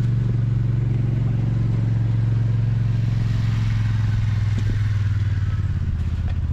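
A small engine running steadily at a constant speed, its pitch easing down slightly about five seconds in.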